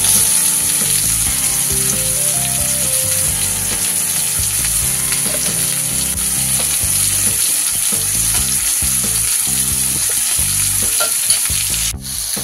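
Masala-coated fish shallow-frying in coconut oil on a tawa, the oil sizzling steadily, with a spoon working through the pan as the masala is spread over the fish.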